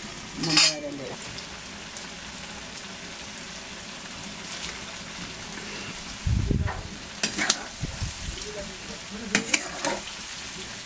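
Pork intestine frying in hot oil, a steady sizzle, with a few sharp knocks and scrapes of a stirring utensil against the pan, one loud scrape near the start and a cluster in the last few seconds.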